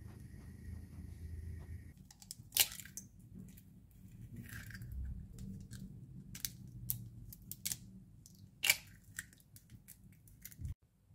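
Eggs being cracked into a ceramic bowl: sharp taps of shell on the rim and crackling as the shell is pulled apart, with two loudest cracks about two and a half seconds in and near the end. A steady low hum with a faint high tone runs for the first two seconds, then stops.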